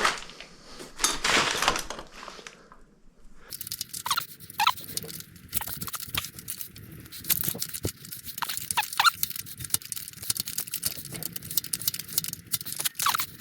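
Rapid, irregular metallic clicking and scraping of a hand tool working the spring preload collar on a Honda XR250R rear shock loose, starting a few seconds in.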